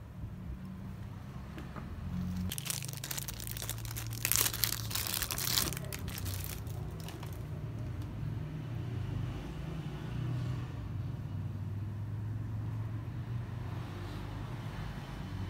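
Crinkling of packaging being handled, starting a couple of seconds in and lasting about four seconds, over a steady low hum.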